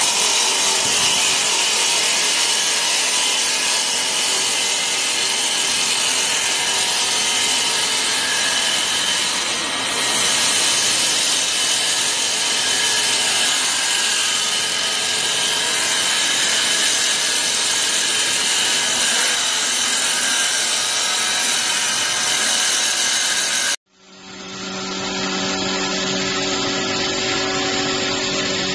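Automatic wood lathe turning wooden blanks: a steady, loud hiss of the cutter shaving the spinning wood, over a high steady machine whine. Near the end the sound breaks off abruptly and returns as a lower, steadier motor hum with lighter cutting noise from a second automatic lathe.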